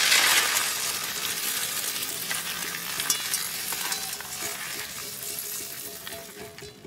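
Freshly dry-roasted whole spices (dried red chillies, cinnamon bark and small seeds) tipped from a pan onto a stainless steel plate, rattling and pattering as they slide out. It is loudest at the start and fades as the last fine seeds trickle out.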